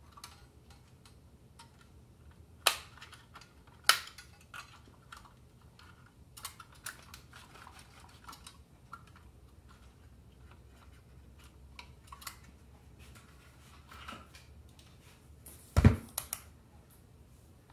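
Scattered light clicks and taps as a test-lead clip and wires are handled against a tin toy robot's open metal body, with one louder knock near the end.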